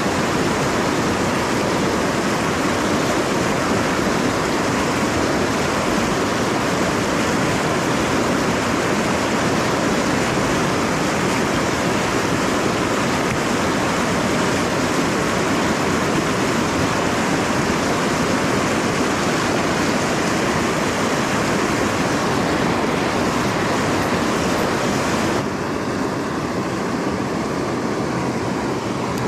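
River rapids rushing: white water churning close by in a steady, loud rush. The rush drops suddenly and goes softer a few seconds before the end, with calmer water in front.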